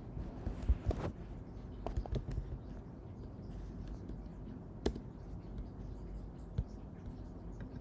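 Computer keyboard keystrokes in two short bursts, then two single clicks, all faint over a low steady room hiss.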